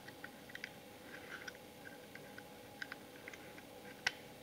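Faint scattered clicks and light scraping of small metal parts against a polymer pistol frame, as a Glock 19 Gen 3's trigger mechanism housing and trigger bar are fitted back into it. One sharper click comes about four seconds in.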